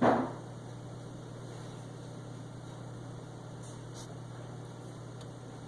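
Steady low electrical hum with an even hiss, with a few faint clicks partway through.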